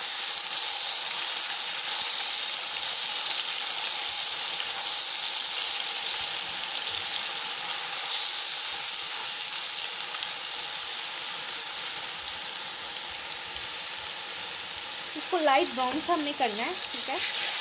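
Chopped red onions sizzling in hot ghee with a steady hiss as they fry, stirred with a spatula.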